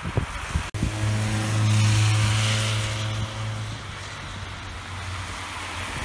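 A motor vehicle passing on a wet, slushy road: a steady low engine hum with tyre hiss that swells to a peak about two seconds in and fades away.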